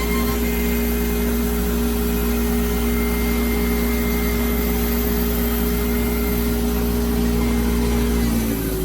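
Onefinity CNC machine's router spindle running at a steady speed with a constant hum, its pitch sliding down near the end as it slows.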